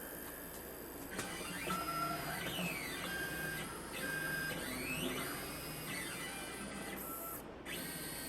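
Stepper motors of a hobby CNC table whining as the gantry drives a pen through a drawing. The pitch glides up and down with each change of speed, with short pauses between moves.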